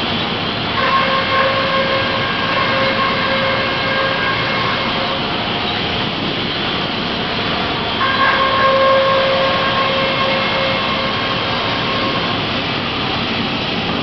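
Sawmill edger and its conveyors running with a steady machine rumble. Twice, about a second in and again about eight seconds in, a pitched whine of saw blades starts as a board feeds through the edger's saws, holds for a few seconds and fades.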